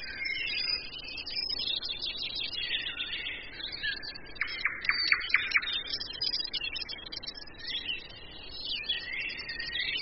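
Several forest songbirds singing and chirping at once in a continuous chorus. A little before the middle, a louder, quick run of about five sharp notes stands out.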